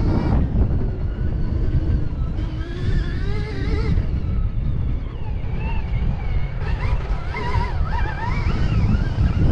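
Stark Varg electric motocross bike being ridden: a thin motor whine that rises and falls with the throttle over heavy wind buffeting on the microphone.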